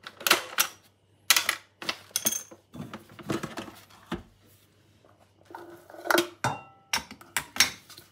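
Metal spoon scraping and knocking against a plastic food-processor bowl as minced meat is scooped out, in a series of short, uneven clatters.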